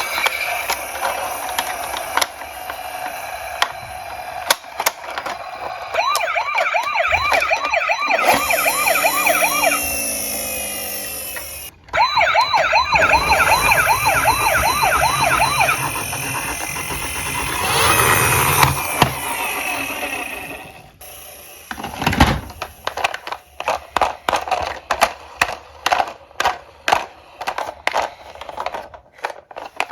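Emergency-vehicle siren sound in a fast warble, going in two stretches, then a rapid run of sharp clicks and clatters in the last third.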